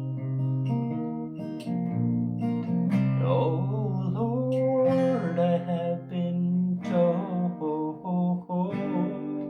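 Acoustic guitar being played, with a singing voice joining in about three seconds in.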